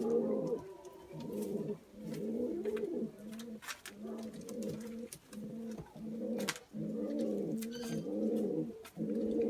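Pet pigeons cooing in a steady run of repeated low coos, a few to the second, as courting birds pair up. A few faint sharp clicks come through.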